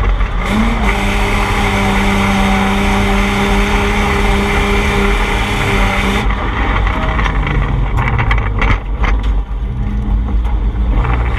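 Drift car engine held at steady high revs over heavy tyre and exhaust noise. About six seconds in the sound cuts to a lower, uneven engine note with a few sharp knocks.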